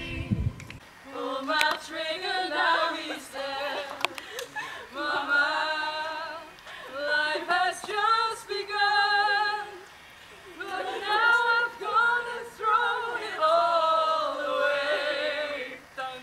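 A small group of girls singing together a cappella, in phrases with short breaths between and a wavering held note about halfway through.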